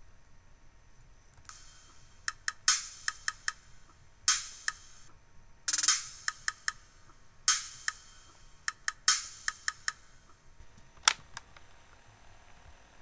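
A homemade electronic song of sparse drum-machine percussion with no melody: short hiss-like hits about every one and a half seconds, with quick sharp clicks between them. It stops with a single sharp click near the end.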